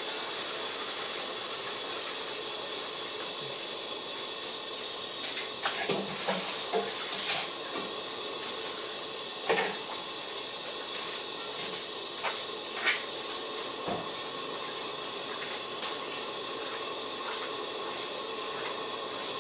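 Pot of beef broth simmering: a steady hiss with a handful of short bubbling pops scattered through it.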